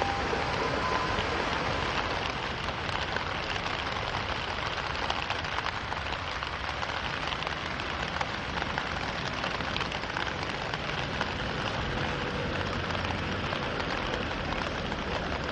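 Rain falling steadily: a continuous hiss with many small scattered ticks of drops.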